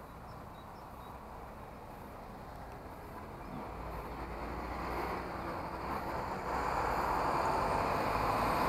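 Road traffic: car and truck engines and tyre noise, growing louder over the last few seconds as vehicles come close.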